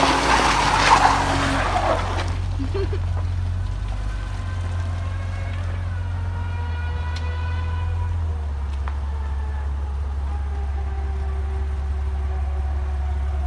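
A car engine revving under load with its tyres spinning on loose ground for about the first two seconds as it tows a stuck Jeep out, then a steady low engine drone.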